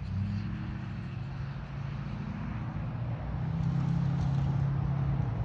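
A motor vehicle's engine humming steadily with a low, even drone that grows louder about three and a half seconds in.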